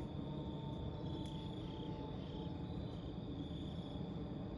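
Crickets chirping in a steady high trill over the low rumble of a jet aircraft overhead, with a faint engine whine slowly falling in pitch.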